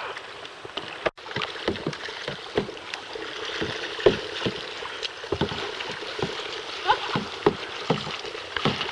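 Kayak paddling on lake water: many short, irregular splashes and drips from the paddle blades, with a brief dropout about a second in.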